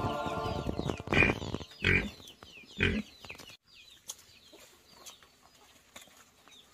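A chicken squawking three times, about a second apart, as background music fades out.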